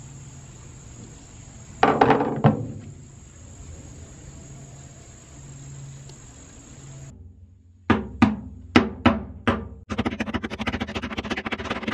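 Hand-installing hardware on an aluminum boat hull: metal fittings and tools knocking against the hull, with a few knocks about two seconds in, a quick series of six sharp knocks past the middle, then a fast, steady run of clicking near the end.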